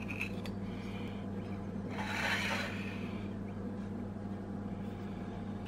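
A ceramic plate sliding across a granite countertop: one short scrape about two seconds in, over a steady low hum.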